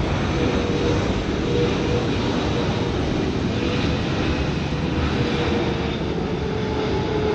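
Jet airliner flying low overhead: steady jet engine noise with a faint held whine.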